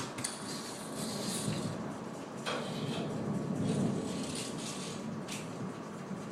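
Distant thunder rumbling low and continuously, swelling a little in the middle, with a couple of faint clicks.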